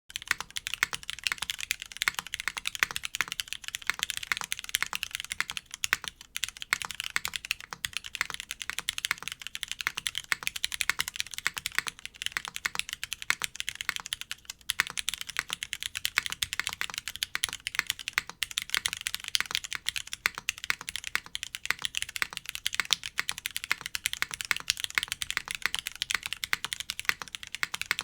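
Fast, continuous typing on an F1-8X V2 mechanical keyboard fitted with Cherry MX Blossom switches: a dense run of sharp key clicks and clacks, with brief pauses about six and fourteen seconds in.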